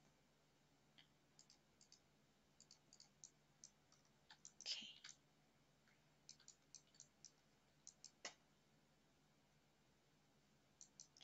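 Faint computer mouse clicks, scattered irregularly over near silence, with a slightly longer, louder click about five seconds in.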